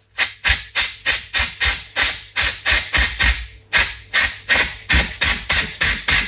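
Compressed air hissing in quick, short pulses, about four a second, with a brief pause about three and a half seconds in. It is being fed gently into a brake caliper while the piston and a new dust boot are fitted.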